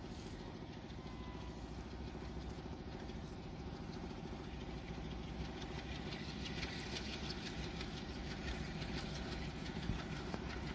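Distant WDM3A diesel-electric locomotive (ALCO 251 V16 engine) running as it approaches, a steady low engine drone slowly growing louder. A higher hiss builds from about six seconds in.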